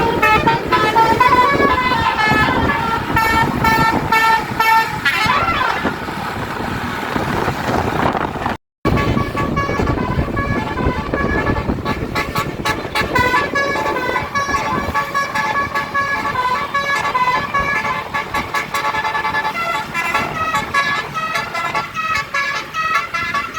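Bus 'telolet basuri' musical air horn playing a quick melody of short notes that step up and down in pitch. The sound cuts out for a moment about nine seconds in, then the horn melody carries on.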